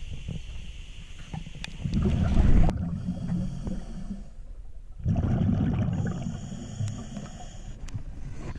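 Water sounds as a waterproof camera goes under in a spring: a loud low splash and churn of water, and then a muffled underwater sound with no high end. Low rumbles of moving water and bubbles swell and fade, with a second surge about halfway through.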